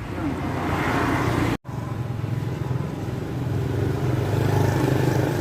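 A small engine running steadily. It is broken by a brief cut to silence about a second and a half in.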